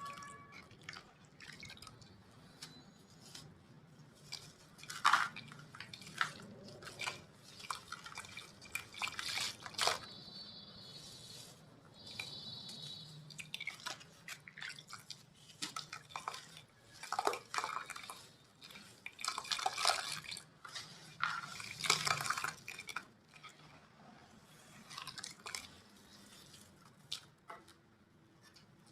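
Gritty chunks of cement crumbled by hand: irregular crisp crackles and small clicks of falling bits, with several louder crunches.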